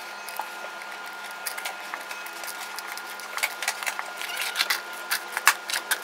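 Hands handling small rubber O-rings, a plastic cup and a packet: scattered light clicks and rustles over a faint steady hum.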